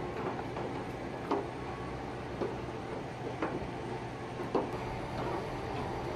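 Footsteps knocking on a metal gangway, sharp single knocks roughly once a second, over a steady low hum.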